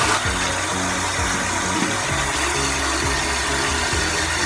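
Tap water running steadily into a sink, with background music playing underneath.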